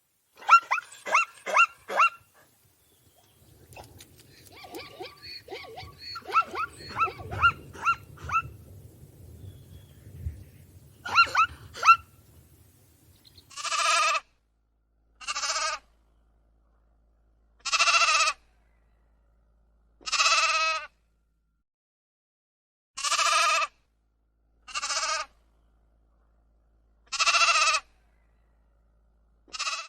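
Sheep bleating: a series of separate, drawn-out bleats, about one every two to three seconds, filling the second half. Before them come quicker, shorter animal calls over a low rumble.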